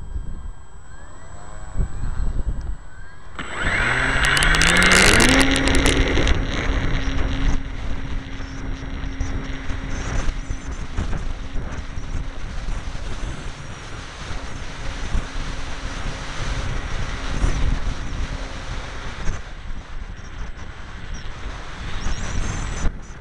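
Electric motor and propeller of a ParkZone T-28 Trojan foam RC plane throttling up about three seconds in, its pitch rising and then holding steady, with a loud rattle during the takeoff run. Then a steady motor drone with wind rushing over the onboard camera's microphone in flight.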